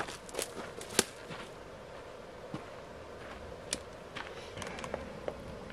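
About half a dozen light, sharp clicks and taps, scattered irregularly, from small items being handled by hand.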